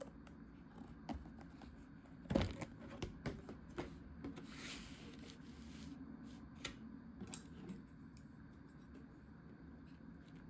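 A plastic bento container and its packaging being handled: a run of sharp clicks and taps about two seconds in, a brief plastic rustle, then a few scattered light clicks.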